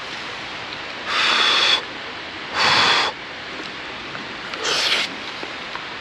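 Three short, breathy mouth sounds, about a second and a half apart, from a person taking hot hot-pot food (pork shabu-shabu in broth), over a steady rushing background hiss.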